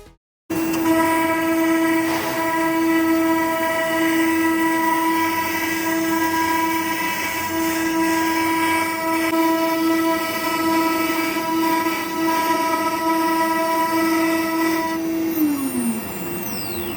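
High-speed spindle of a CNC nesting router running with a steady high-pitched whine over a noisy machining hiss, then winding down with a falling pitch near the end as the spindle slows to a stop.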